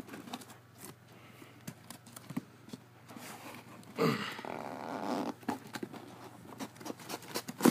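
Cardboard box being handled and worked open by hand: scattered light taps and rustles, with a louder stretch of rubbing and scraping about four seconds in.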